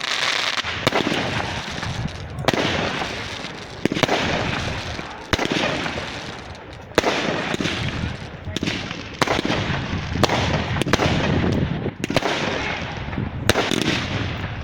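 Fireworks going off in a steady string of sharp bangs, one every second or so. Each bang is followed by a fizzing crackle that fades before the next one.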